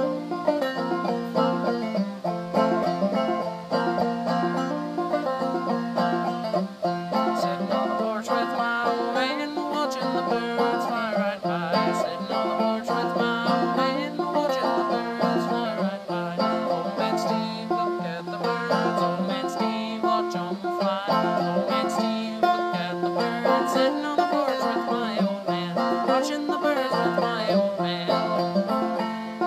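Banjo played clawhammer style: a continuous tune of plucked notes.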